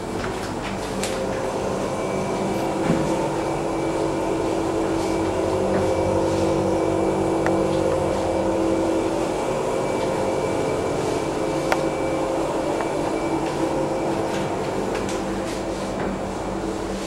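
Steady hum of a room's air-handling fan, with a droning tone that strengthens about two seconds in and fades around nine seconds, and a few faint clicks.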